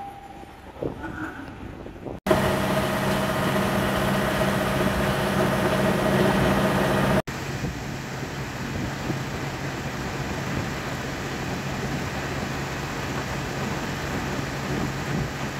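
Diesel locomotive engines running steadily, a low steady engine hum with a few held tones. The sound jumps abruptly about two seconds in and changes again about seven seconds in, at edits between clips.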